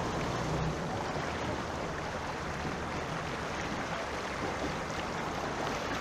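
Floodwater flowing fast across a road: a steady rush of water.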